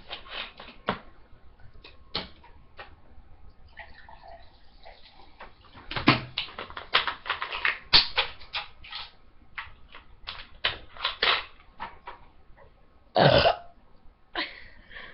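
A loud, short burp about thirteen seconds in, after drinking, among scattered small clicks and knocks.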